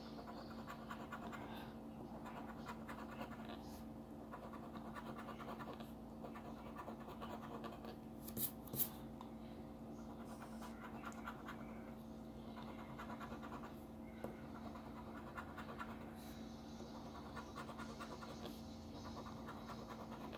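A coin scraping the scratch-off coating off a paper lottery ticket: a faint, steady rasping that goes on throughout, over a steady low hum. Two sharp clicks come about eight seconds in.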